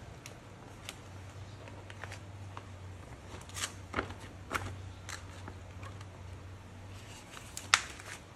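Banana leaves being folded and pressed by hand, crackling and rustling in sharp little crisp sounds, with a cluster of them around the middle and one louder crack near the end. A low steady hum runs underneath.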